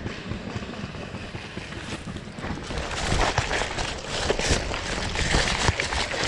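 Footsteps and the rustle of brush and undergrowth against clothing and gear as a player moves through woodland, with irregular crunches and brushing noises that grow louder about halfway through.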